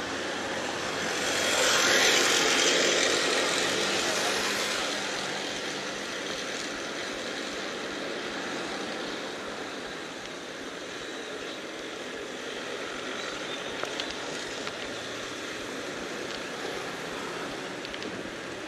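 Street traffic noise, with a motor vehicle passing close about two seconds in, its sound swelling and fading over a few seconds, then a steady hum of traffic.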